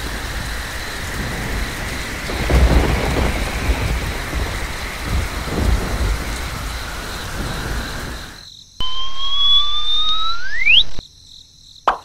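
Rain and thunderstorm sound effect: steady heavy rain with thunder swelling twice, about three and six seconds in, cutting off about nine seconds in. Then a rising whistle glides up for about two seconds, and a quick plop or two comes near the end.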